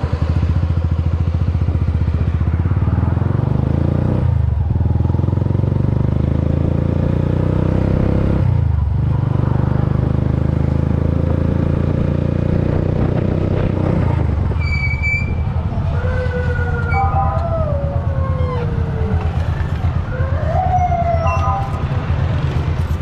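Motorcycle engine of a passenger tricycle running steadily under way, its sound dipping briefly twice in the first half. From about two-thirds of the way in, a higher wavering tone slides down and back up over the engine and traffic.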